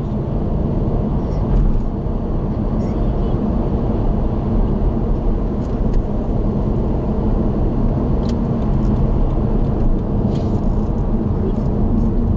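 Steady road and engine noise of a car cruising on an expressway, heard from inside the car, with a few faint ticks.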